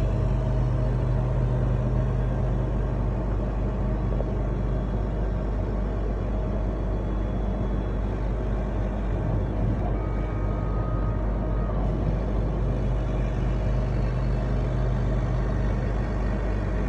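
Laser engraving machine running: a loud, steady mechanical hum and whoosh, with a thin high whine for about two seconds some ten seconds in.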